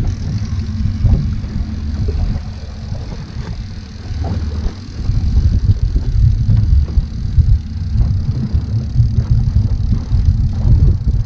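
Boat engine running: a steady low hum with irregular low rumbling over it.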